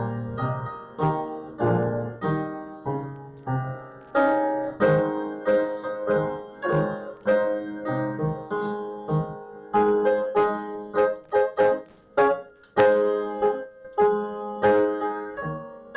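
Piano playing a slow piece of church music, chords and single notes struck and left to ring and fade.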